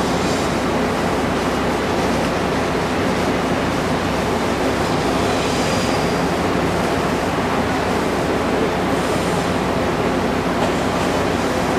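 Shinano Railway 115-series electric train running slowly through the station tracks: a steady rumble with a low hum under an even hiss.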